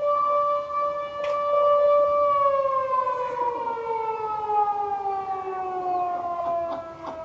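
A motor-driven siren sounds one long steady tone, then winds down slowly in pitch from about two seconds in.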